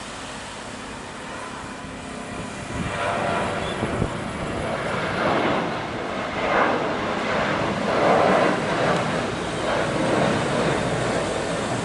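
Airliner engines at takeoff power as a plane rolls and climbs past. The engine noise swells about two and a half seconds in and stays loud, rising and falling unevenly.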